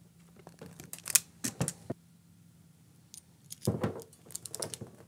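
Small clicks and rattles of a wire loom and a hand crimping tool being handled on a workbench: a few sharp clicks about a second in, then a busier cluster of clicking and rattling near the end.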